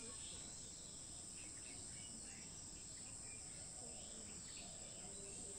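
Faint, steady high-pitched insect chorus, like crickets, with faint short bird chirps scattered through it.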